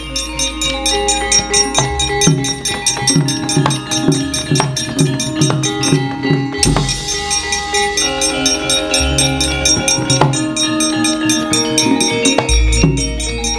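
Javanese gamelan ensemble playing: ringing metallophones over quick drum strokes, with a deep low gong-like note sounding about every two to four seconds.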